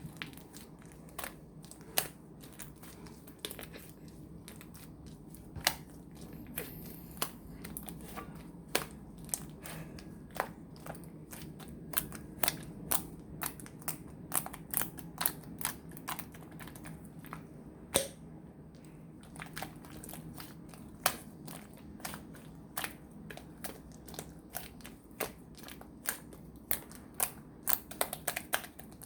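Slime being squished and worked by hand, giving many sharp, irregular pops and clicks, several a second at times.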